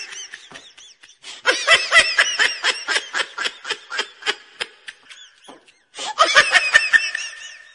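High-pitched laughter in quick ha-ha pulses, in several bouts with short breaks: one tails off just after the start, a long bout begins about a second and a half in, and another comes near the end.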